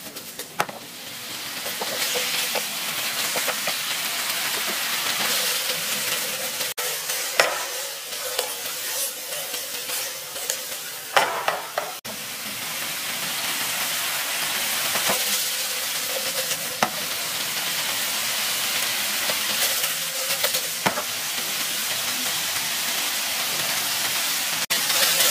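Boneless chicken pieces in buffalo sauce sizzling in a nonstick frying pan over a gas flame as they are tossed and stirred, with a steady hiss and occasional sharp knocks and scrapes of the pan.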